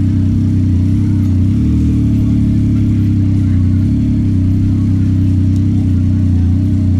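Yamaha MT-09 SP's inline three-cylinder engine running steadily under way, a dense, even engine note.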